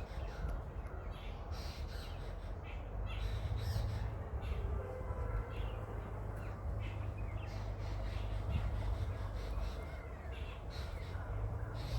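Birds calling with repeated short, harsh calls, scattered throughout, over a steady low rumble.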